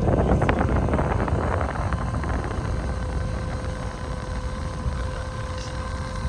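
Clothes dryer running for an airflow test, its exhaust air rushing steadily out of the freshly cleaned vent duct with a low hum. A clatter of clicks comes in the first two seconds.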